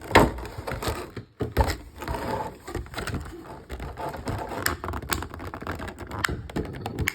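Cardboard and plastic packaging being handled and unpacked by hand: rustling with irregular clicks and taps.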